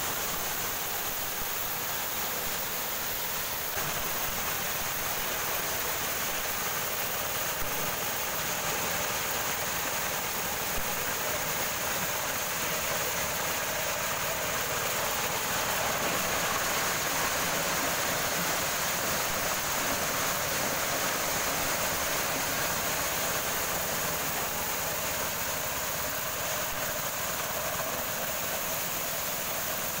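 Motorised corn sheller running at a steady pace, a constant mechanical rushing noise as the dried corn is shelled.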